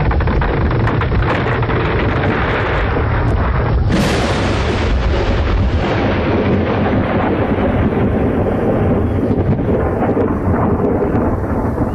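Thunderstorm sound effect: a steady wash of storm noise with a low rumble, and a sharp thunderclap about four seconds in that rolls away and fades over the next few seconds.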